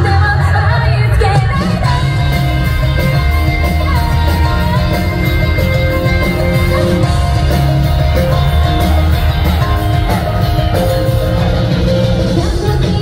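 A live rock band plays loud and steady with a woman singing: electric guitar, bass, drums and keyboards, heard through the hall.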